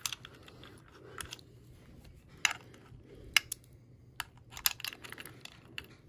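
Irregular sharp clicks and taps from the metal outer housing of a fingerprint smart deadbolt being handled, with a key worked into its cylinder near the end.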